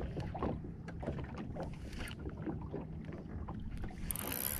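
Wind and choppy water against a small fishing boat's hull, a steady low rumble, with faint scattered clicks from the spinning rod and reel being worked. A high hiss comes in near the end.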